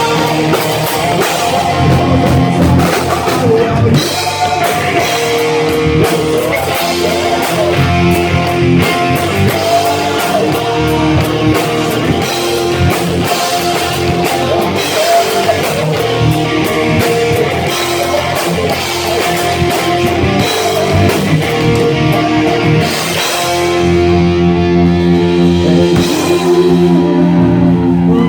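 Rock band playing an instrumental passage without singing: electric guitar over a drum kit. About five seconds before the end the high sizzle drops away and long held guitar chords ring out.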